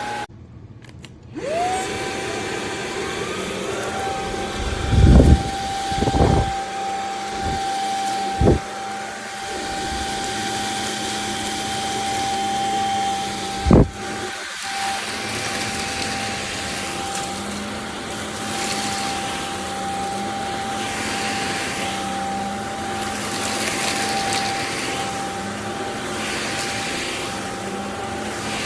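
CHEBIO V18 cordless stick vacuum cleaner running, its motor spinning up about a second in to a steady high whine. A few thumps are heard along the way.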